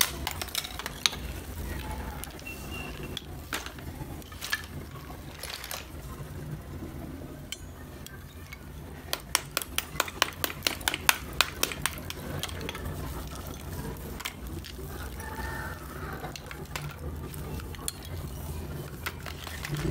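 A small hammer taps on slabs of roasted multani mitti (baked fuller's earth clay), knocking the layers loose. The taps come as quick, light, clicky strokes in bursts, over a low steady hum.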